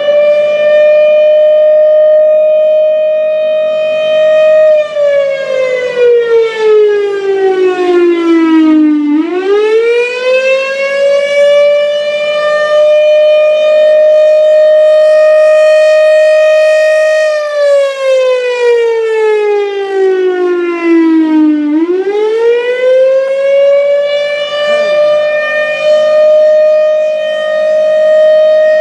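1957 Federal Sign & Signal Thunderbolt 1000 warning siren sounding its attack signal: a loud, held tone that twice slides down over about four seconds, then swoops quickly back up and holds again.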